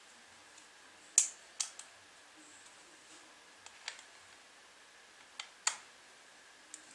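Sharp, separate clicks and taps of small hard parts being handled, about seven in all, the loudest a little over a second in.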